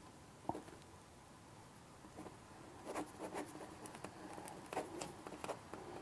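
Pen writing on paper on a desk: faint scratching strokes, coming thick and fast from about halfway through, after a single light tap about half a second in.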